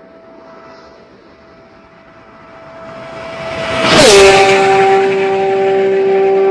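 Porsche GT3's flat-six engine, breathing through Dundon Motorsport long-tube street headers, K&N filters and the stock centre muffler, in a high-speed fly-by at about 340 km/h. A steady high engine note swells as the car approaches and peaks about four seconds in with a sharp drop in pitch as it passes, then stays loud at the lower pitch as it pulls away.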